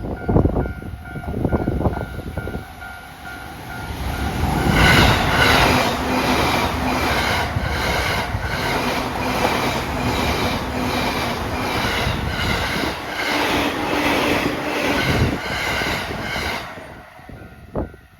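A Tokaido Line local electric train passes a level crossing at about 89 km/h. For about twelve seconds there is a loud rush of wheel and rail noise with a steady clack of about two beats a second. A repeating level-crossing warning bell dings before the train arrives and again after it has gone.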